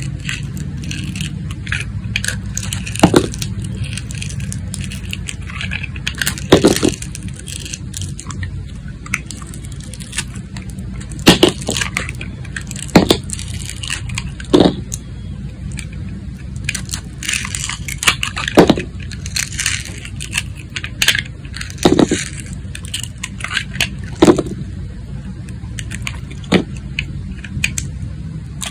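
Box-cutter blade shaving thin slices off a glitter-coated glycerin soap: a soft scraping as the blade draws through, with a sharp crack every few seconds, about ten in all.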